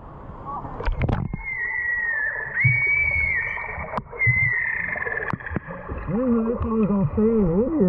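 Sound heard through an action camera held underwater in a pool: a steady high whine that wavers slightly, a few sharp knocks, and warbling muffled tones in the last two seconds.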